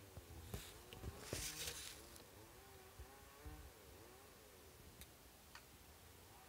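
Faint distant engine hum, its pitch slowly rising and falling, with a short rustling hiss about a second and a half in and a few light ticks.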